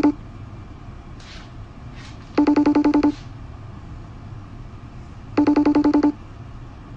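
Electronic telephone-style ring: a rapid trill on one steady pitch lasting under a second, sounding twice about three seconds apart, with the end of a previous ring at the start.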